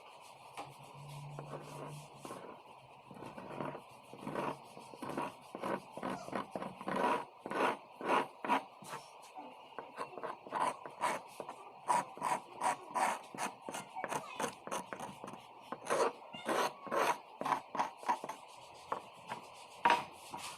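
Repeated scraping strokes, about two a second, closer together in the second half.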